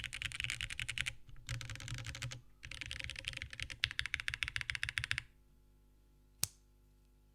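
Fast typing on a TGR Jane ME mechanical keyboard with Gateron Oil King linear switches, PC plate and O-ring mount, with two brief pauses. The typing stops about five seconds in, and a single key click follows about a second later.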